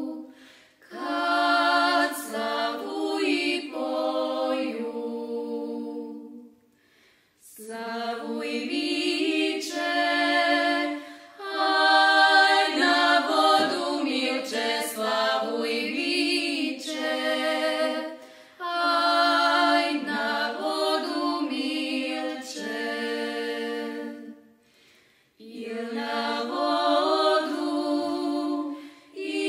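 Women's vocal group singing a Serbian folk song from Banat a cappella, several voices together in long phrases with short pauses between them.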